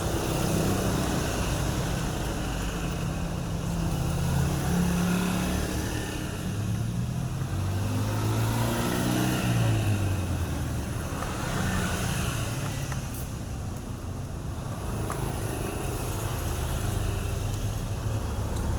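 A small two-stroke chainsaw engine running, its pitch rising and falling as the throttle is opened and eased off.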